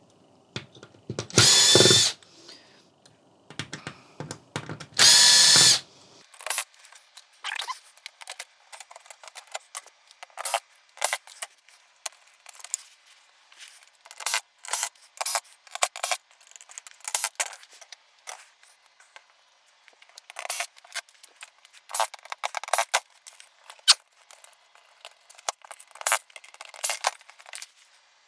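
A power drill-driver runs twice, for about a second each time, with a whine, driving screws out of a television's plastic case. After that comes a long run of light clicks and rattles as the screws and plastic parts are handled.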